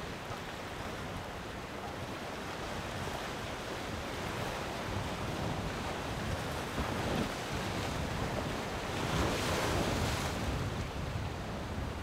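Waves on a rough, wind-driven sea, with wind gusting across the microphone; a wave surges louder about nine seconds in. This is the sea turning rough enough to stop the women diving.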